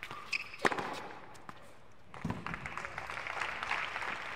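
A tennis ball struck hard by a racket on a hard court, a sharp pop just over half a second in, with a brief shoe squeak before it. About two seconds in, spectators start clapping and keep applauding for about three seconds as the point ends.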